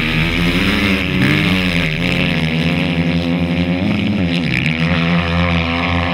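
Dirt bike engine revving, its pitch dipping and rising again several times.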